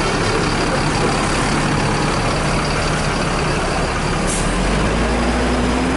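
A large tour bus's diesel engine running close by, its low rumble growing heavier over the last second and a half, with a short hiss of air about four seconds in.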